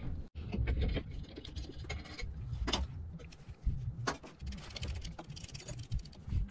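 Small metal hardware being handled: irregular clicks and light rattles of number 8 screws and nuts as they are fitted by hand to fasten a laser nozzle head to its carriage plate, a couple of sharper clicks among them, over a low handling rumble.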